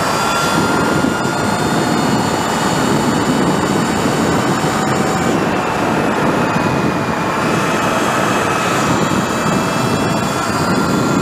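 Sur Ron electric dirt bike's motor whining at riding speed: several high steady tones that drift slightly in pitch, over a steady rush of wind and tyre noise.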